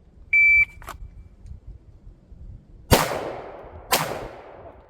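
Shot timer's start beep, one short steady high tone, then two pistol shots about a second apart, each with a long echoing tail. This is a fast-draw drill at 80 yards, the first shots fired after the beep.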